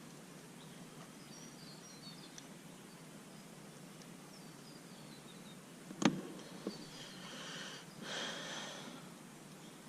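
Quiet open-air background with faint high chirps. About six seconds in there is a sharp knock, the loudest sound, then a smaller one just after and a short rushing hiss about two seconds later.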